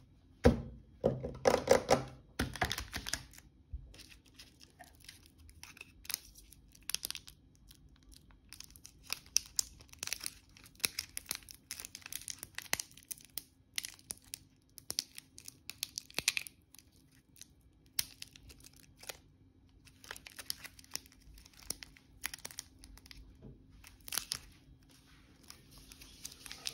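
Thin plastic candy-bar wrapper crinkling and tearing as it is peeled open by hand, in many short crackles. The loudest crinkling comes a couple of seconds in, followed by scattered crinkles and small tears.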